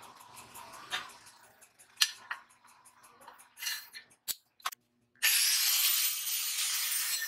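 Light clicks and taps of a hacksaw blade and marker against a 5 mm steel plate. About five seconds in, an angle grinder with a cutting disc starts suddenly, spins up and runs loud and steady, cutting into the steel plate.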